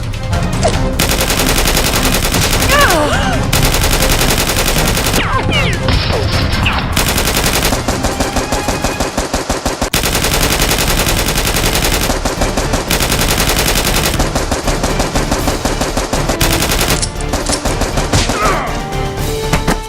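Rapid automatic gunfire in long sustained bursts broken by short gaps, with background music underneath.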